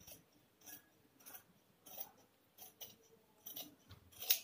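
Large tailor's scissors snipping through cloth along a curved neckline: a series of crisp snips, roughly one every half to three-quarters of a second, the loudest near the end.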